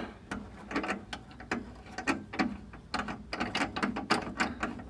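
The blade-height mechanism of a switched-off table saw is being cranked, giving a quick, uneven run of mechanical clicks and ticks from its gearing as the blade is set to cut a groove in a board.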